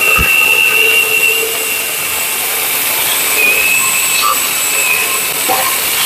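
Parkside PGHSA 20 Li cordless mini chainsaw running with a steady high whine, its pitch dropping slightly about halfway through as it works through wood. A short low thump just after the start.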